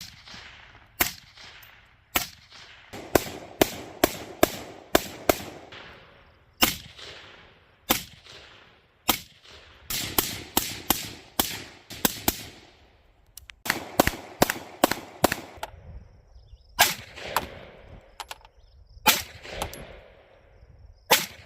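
Gunshots fired at an irregular pace: single shots a second or so apart, and two quick strings of several shots, each shot followed by a trailing echo.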